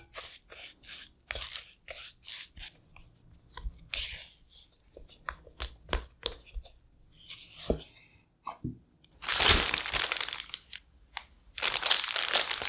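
Silicone spatula scraping and pressing potato-starch dough against a glass bowl, a string of short scrapes and soft crunches. About nine seconds in, a clear plastic zip bag rustles and crinkles loudly as the dough goes in, and again near the end.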